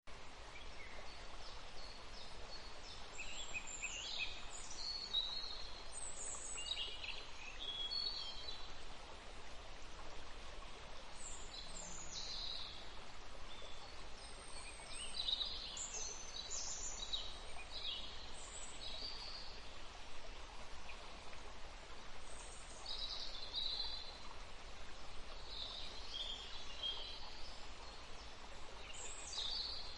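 Small birds chirping and singing in short, scattered calls over a steady background hiss.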